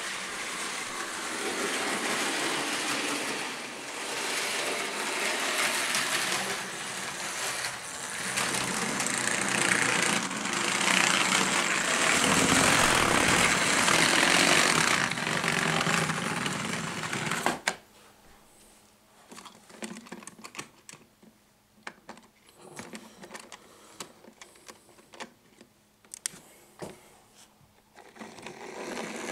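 Electric toy Thomas the Tank Engine model train running on its track, a steady motor whir and wheel rumble. It cuts off suddenly about two-thirds of the way through as the train stops, leaving only scattered faint clicks.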